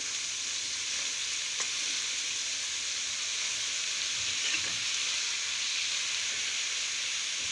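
Shredded cabbage, carrot and green capsicum sizzling steadily in hot oil in a kadhai while a steel spoon stirs them.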